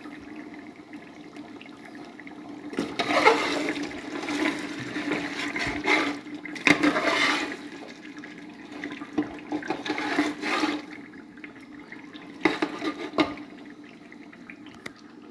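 Metal spoon stirring beef curry in an aluminium pot, giving wet sloshing and scraping in several bursts, over a steady low hum.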